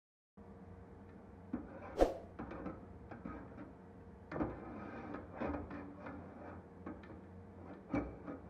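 Rusty Bowie knife being worked in a metal drum of liquid by gloved hands: the blade knocks and clinks against the drum amid sloshing of the liquid. There are scattered sharp clicks, the loudest about two seconds in.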